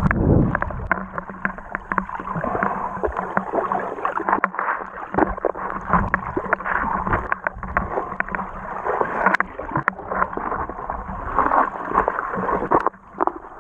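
Muffled water sloshing and gurgling heard through a camera held just below the surface, with many small clicks and knocks.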